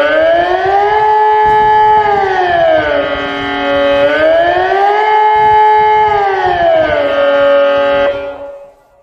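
ET 751 civil-defence siren sounding the Swiss general alarm (Allgemeiner Alarm) test signal: a loud wail that rises, holds, falls and holds low again, about once every four seconds. The signal ends a little past eight seconds in, and the tone dies away quickly.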